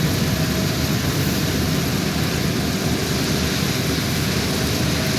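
Vishal 435 combine harvester running steadily, its engine and machinery making a loud, even mechanical noise.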